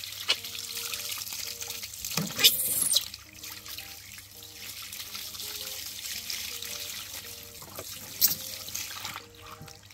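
Water poured from a plastic bottle, splashing and trickling over a baby monkey and onto wet concrete. Faint background music with short stepped notes plays under it.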